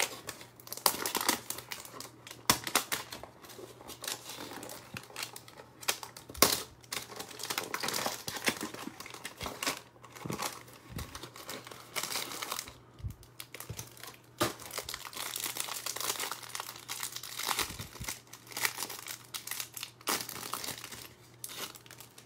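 Clear plastic shrink-wrap on a cardboard trading-card hanger box crinkling and crackling irregularly as it is peeled off and crumpled, along with the handling of the cardboard box and its paper card sleeve as they are opened.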